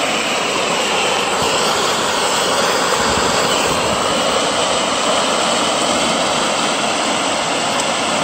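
Fast-flowing water rushing through white-water rapids, a loud steady rush with no breaks.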